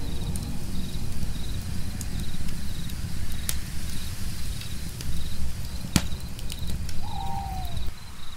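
Crickets chirping in a steady rhythm over a low rumble, with the crackle of a campfire and its sharp pops, the loudest about six seconds in. A short falling animal call comes about seven seconds in, and the low rumble drops away near the end.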